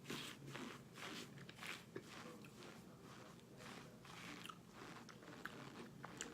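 Faint crunching and chewing of microwave-baked cornstarch chunks: a run of short crunches, a couple a second, more spaced out toward the end.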